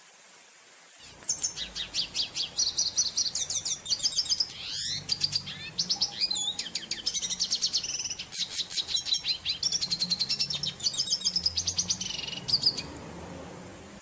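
Red siskin singing a long, fast twittering song of rapid trills, repeated notes and gliding notes. The song starts about a second in and stops shortly before the end.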